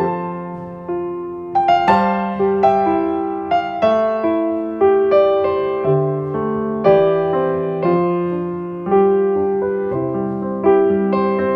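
Piano music: a slow melody of single notes and chords, each struck and left to ring and fade.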